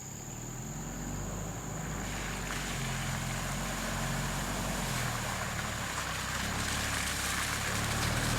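Truck engine running steadily under way, with a hiss of tyres and wind that builds about two seconds in and grows gradually louder.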